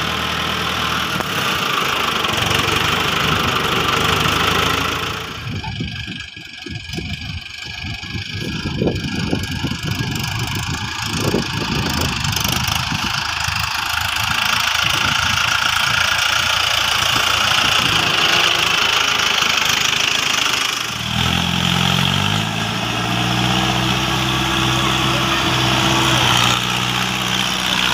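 Mahindra Arjun tractor's diesel engine running as it drives, the engine note climbing as it is revved up about three quarters of the way through.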